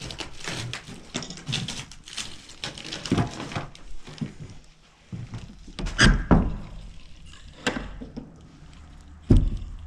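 Irregular knocks and thuds with small clicks between them, heard in a small room. The loudest thumps come about six seconds in, again a little later, and near the end.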